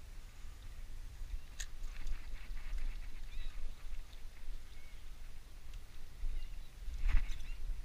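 Wind rumbling on the microphone, with short bird calls now and then and a louder call about seven seconds in.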